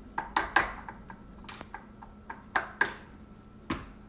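A tablespoon and containers clicking and tapping against a mixing bowl as glitter is added: about eight sharp clicks, several in quick pairs.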